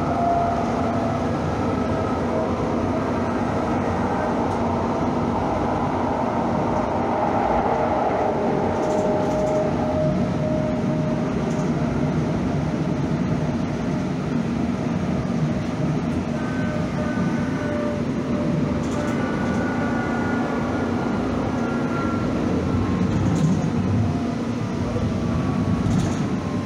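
Calgary CTrain light rail train running: steady running noise with faint whining tones that slowly slide in pitch.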